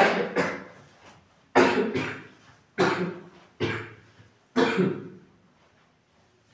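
A man coughing repeatedly: about six hard coughs over five seconds, the first two in quick succession.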